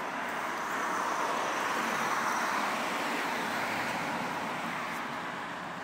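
A road vehicle driving past, its tyre and engine noise swelling over about two seconds and then slowly fading away.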